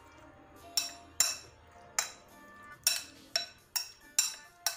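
Metal spoon clinking against a glass bowl while stirring raw chicken cubes: about eight sharp clinks at uneven intervals.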